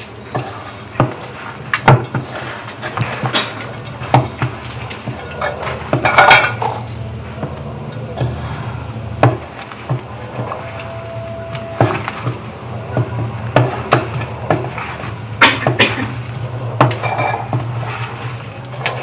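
Hands mixing a stiff onion-and-gram-flour pakoda mixture in a stainless steel bowl: irregular clinks, knocks and scrapes against the steel, over a steady low hum.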